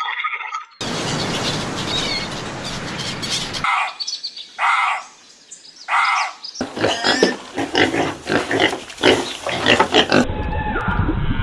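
Animal calls from several clips cut together: a noisy stretch, then a few separate loud calls about a second apart, then a run of quick calls, with a sudden cut to a different clip near the end.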